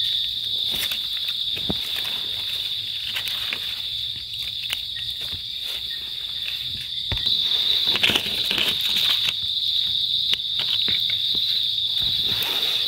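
Steady high-pitched chorus of forest insects, with scattered rustles and crunches of footsteps and hands moving through dry leaf litter.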